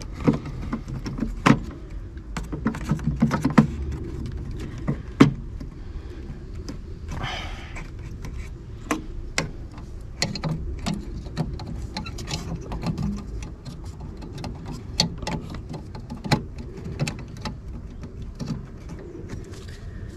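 Hands refitting parts into the back of a BMW E60 plastic headlight housing: scattered sharp plastic clicks and knocks, several close together in the first few seconds, over a low background rumble.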